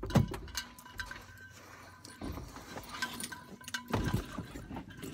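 Handling noise from a phone being set up and moved by hand, with scattered light clicks and knocks and a couple of louder knocks about four seconds in.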